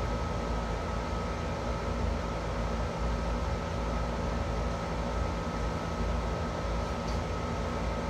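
A steady machine hum: a low rumble with a constant high whine over it, unchanging throughout.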